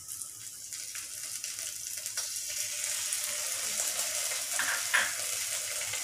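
Cashew and melon-seed paste sizzling in hot oil and fried masala in a steel kadai, the hiss slowly growing louder, with one sharp tick about five seconds in.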